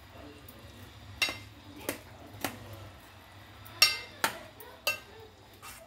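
A spoon clinking against the side of a stainless steel pot as fried bread pieces are stirred in sugar syrup: about seven sharp, irregular knocks, the loudest a little before the four-second mark.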